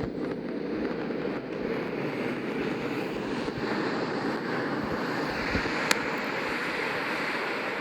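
A steady, roaring rush of noise, like the long rumble of an explosion sound effect, that drops away sharply near the end.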